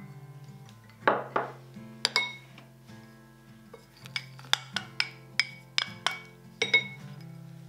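A kitchen utensil clinking against a mixing bowl: sharp, ringing clinks that come in a quick run through the second half, over soft acoustic guitar music.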